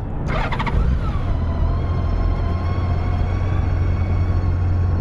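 Honda Gold Wing GL1800's horizontally opposed six-cylinder engine running steadily at idle with a deep, even hum. A few light clicks come just after the start, and a higher tone falls and settles about a second in.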